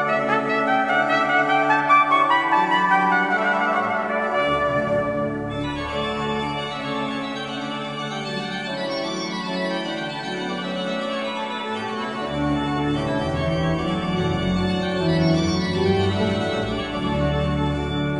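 Organ music: held chords over deep bass notes.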